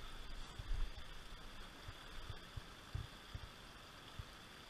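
Steady rush of a shallow, rocky creek running over stones, with irregular low, dull thumps from the camera being jostled.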